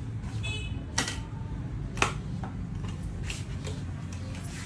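Clicks and light scrapes of a cardboard box being slit open with a box cutter and its tray slid out, two sharper clicks about a second apart, over a steady low hum.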